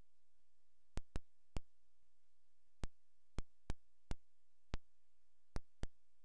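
Computer keyboard keystrokes, with perhaps a mouse click, while numbers are typed in: about ten sharp, separate clicks at uneven spacing.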